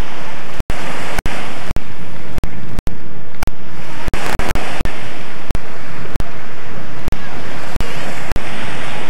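Small sea waves washing onto a sandy shore, with wind on the microphone. The sound is broken by frequent clicks and brief dropouts in the videotape audio.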